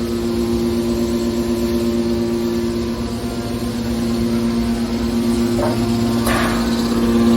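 Hydraulic metal wire baler running, its pump and motor giving a steady hum at two fixed pitches. Two short noises cut in a little past five and six seconds in, the second the louder.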